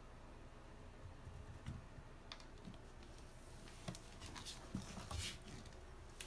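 Faint, scattered light clicks and scratches of a kitten playing with dry cat kibble, busiest about midway through.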